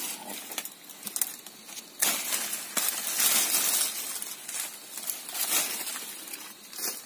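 Footsteps crunching through dry leaf litter and brushing through undergrowth: a dense crackling rustle that gets much louder about two seconds in and eases off near the end.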